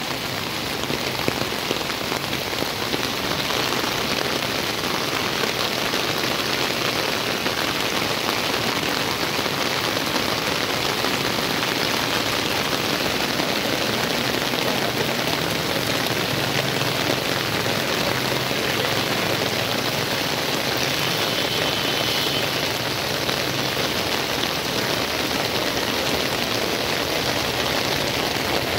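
Heavy rain pouring onto a flooded street, a steady dense hiss of the downpour striking standing water.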